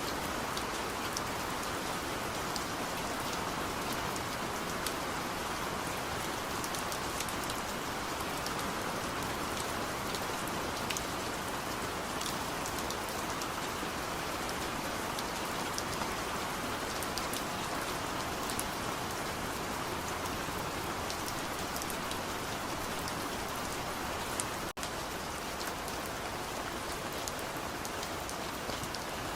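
Steady rain falling: a dense, even hiss with many small, sharp drop ticks. The sound cuts out for an instant near the end.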